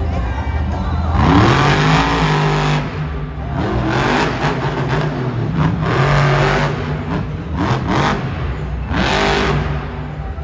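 Monster truck engine revving hard over and over as the truck drives on the dirt arena floor, the pitch sweeping sharply upward several times.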